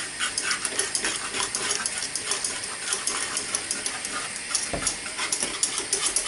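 Wire whisk beating thickened white sauce in a saucepan: a fast, irregular run of light clicks and scrapes as the wires hit the pan, over a steady hiss.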